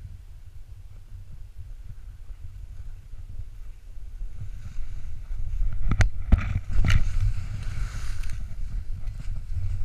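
Wind rumbling on an action camera's microphone while a rider descends through snow. From about four and a half seconds in, snow hisses and scrapes under the rider as he speeds up, with two sharp knocks about a second apart near the middle.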